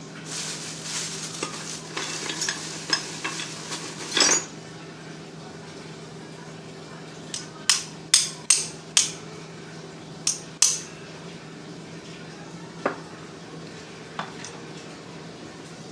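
Small metal parts of an electric drill's gearbox clinking and rattling as they are handled. It starts with a scraping rattle ending in a louder clink, goes on to a quick run of about seven sharp clinks, and ends with two faint taps, all over a steady low hum.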